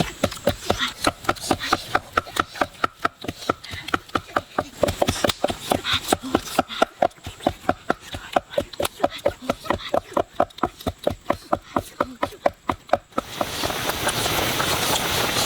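Rapid, even knife chopping on a wooden board, about five strokes a second. About 13 seconds in, the chopping stops and a steady hiss of food cooking over heat takes over.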